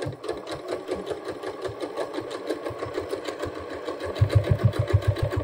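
Domestic electric sewing machine stitching at a steady speed through layers of fabric and elastic in a waistband casing, a fast even run of needle strokes. In the last second or so the strokes knock louder and heavier as the needle goes through the bulkiest end of the casing.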